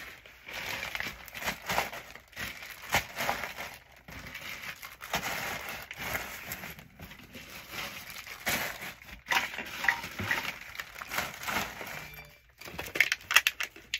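Medical supplies being packed by hand into a bag: packaging rustling, with light clinks and clicks of small items knocking together, and a quick run of louder clicks near the end.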